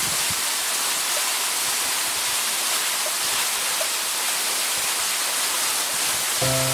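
Waterfall rushing with a steady, even roar of falling water. Music with held notes comes in near the end.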